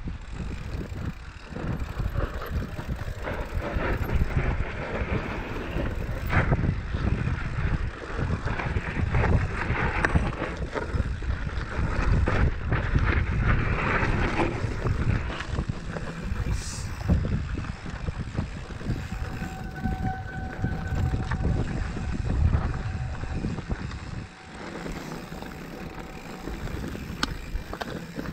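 Mountain bike rolling over loose rock and gravel, tyres crunching and the bike rattling and knocking over bumps, under constant wind rumble on the camera's microphone.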